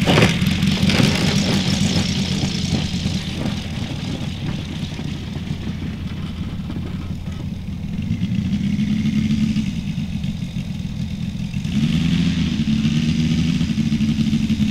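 Saito FG-60R3 60cc three-cylinder gasoline radial engine of a large RC model plane, running steadily at low throttle while the plane rolls and taxis on grass. There is a single sharp knock at the very start. The engine speed picks up slightly near the end.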